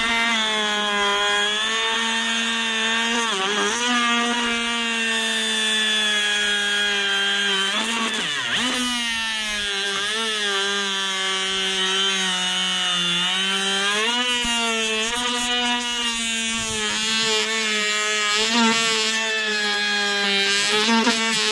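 Handheld pneumatic grinder running at a steady high whine against a fibreglass boat hull, grinding away damaged laminate. Its pitch sags briefly several times as it bites into the surface.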